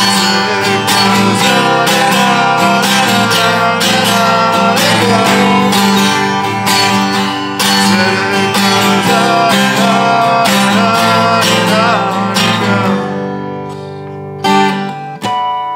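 Acoustic guitar strummed in steady chords. About thirteen seconds in, a chord is left ringing and fading, followed by two last strums near the end.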